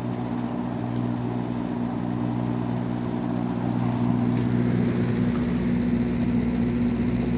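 Mid-1980s Robeson model 2385 reversible box fan running in reverse on medium speed: a steady motor hum under the rush of air from the blade, with rattling from the fan's plastic frame.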